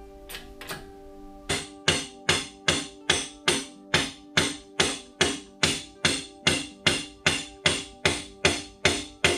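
Background music: a sustained chord under a steady percussive beat that starts about a second and a half in.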